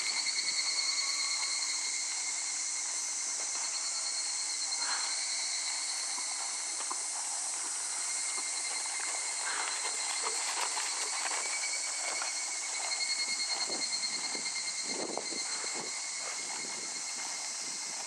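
A steady, high insect chorus buzzing at two thin pitches, over the soft, repeated thuds of a horse's hooves trotting on sand, which come through most plainly near the end.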